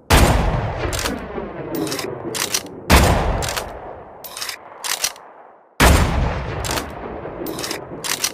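M99 sniper rifle sound effect: three heavy rifle shots about three seconds apart, each trailing off in a long rolling echo. Short sharp clicks, mostly in pairs, come in the gaps between the shots.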